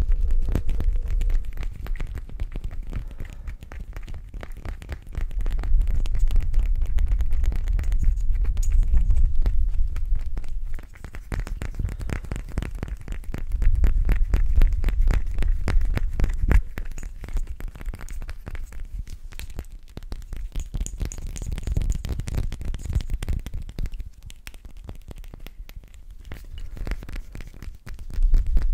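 Fingers and nails rapidly tapping and scratching a small glass bottle held right against the microphone, with low rumbling handling noise that swells and fades in stretches.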